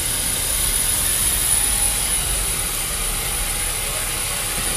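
Steady drone and hiss of an airport apron shuttle bus's engine heard from inside the cabin, with a thin high whine over it.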